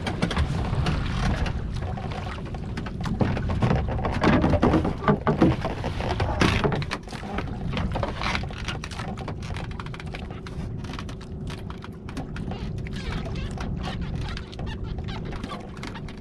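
Small outrigger fishing boat under way: a steady low rumble with water splashing at the hull, and many sharp knocks and thumps on the boat, loudest about four to six seconds in.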